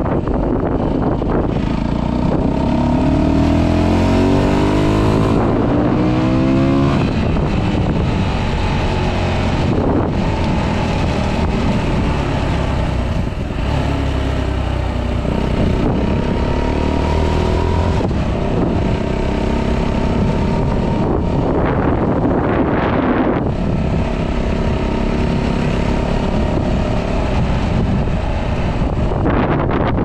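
A 125cc motorcycle engine rising in pitch as the bike accelerates between about two and seven seconds in, then running steadily, with wind rushing over the action camera's microphone throughout.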